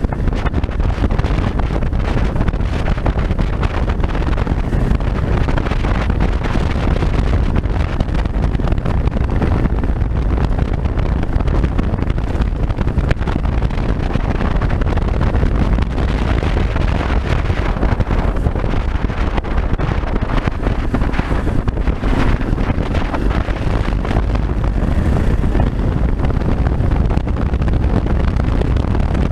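Steady wind rush on an action camera's microphone while a Yamaha XT600 Ténéré motorcycle is ridden at road speed, with its single-cylinder engine running underneath.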